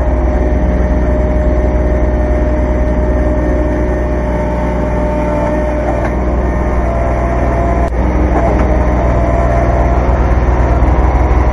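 Kubota B2320 compact tractor's diesel engine running steadily while working the front loader, with a faint steady whine. There is a single sharp knock about eight seconds in.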